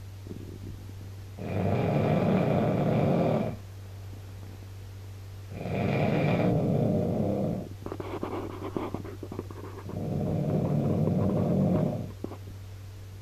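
A man snoring loudly in his sleep: three long snores of about two seconds each, one every four seconds, with a faint crackle between the second and third.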